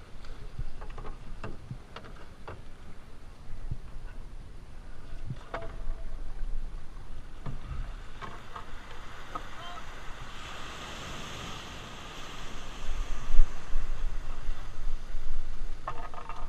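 Outrigger canoe being paddled, with a series of short splashes from the paddle strokes and water sloshing along the hull. From about ten seconds in, a steady hiss of water washing in the shallows takes over, with wind buffeting the microphone.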